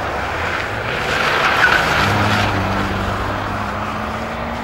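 Ford Focus race car's engine pulling hard through a hairpin and accelerating away. Loudest about a second and a half in as it passes, then a steady, fading engine note.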